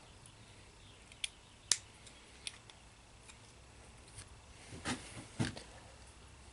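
Small sharp clicks and ticks of hands and a small tool working on a throttle-body fuel injector, as the old filter screen is pried off. A louder cluster of scraping clicks comes about five seconds in.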